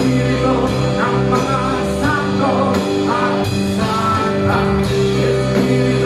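Rock music with a singing voice and guitar over steady held notes.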